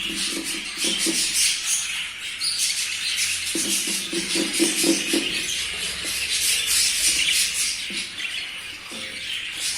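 Many budgerigars chattering and chirping together, a continuous busy warble of quick chirps and clicks.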